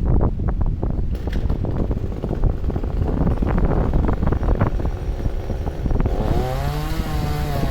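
Wind buffeting the microphone with rumbling and crackling, then from about six seconds in a chainsaw engine running at low revs, its pitch wavering up and down.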